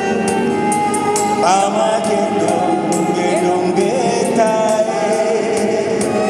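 A man and a woman singing a duet into microphones over instrumental accompaniment with a steady beat.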